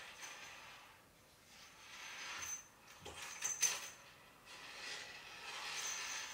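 Cat teaser wand swishing and rustling in repeated passes as it is waved over a cat, with a sharp knock on the wooden cat furniture about three seconds in.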